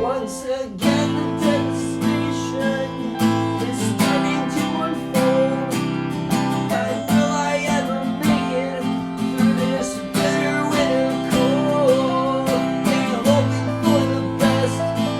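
Instrumental break of a song: strummed acoustic guitar chords in a steady rhythm, with a wavering melody line on top.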